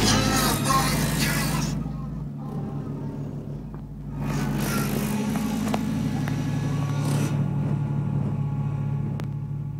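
Car-audio bass from two 18-inch Obsidian subwoofers playing music in a 1997 Chevy Blazer, heard from outside the vehicle. Deep sustained bass notes that change every second or so, with little of the music above them after the first couple of seconds.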